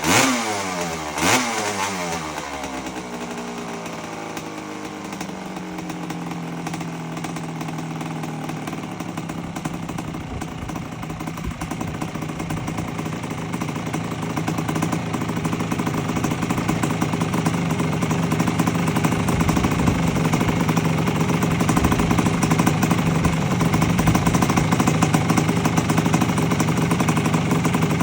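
1984 Honda CR250's two-stroke single-cylinder engine running on a heat cycle after its rebuild: blipped briefly twice around the start with the revs falling straight back, then idling steadily, slowly growing louder.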